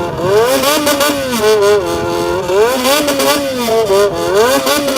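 Yamaha XJR400 air-cooled inline-four through a Waltz Kikai aftermarket exhaust, its throttle worked in a bōsōzoku-style 'call': the revs swing up and down again and again in a tune-like rhythm, settling on a steadier held pitch near the end.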